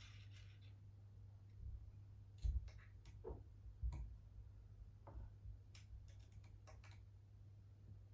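Scattered light clicks and taps of small metal parts and screws being handled while an air rifle is put back together, the loudest two knocks about 2.5 and 4 seconds in, over a steady low hum.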